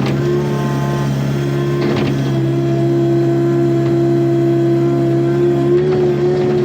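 Takeuchi TB145 compact excavator's diesel engine running steadily, with a hydraulic whine that shifts slightly in pitch as the controls are worked. A couple of faint knocks come about two seconds in and near the end.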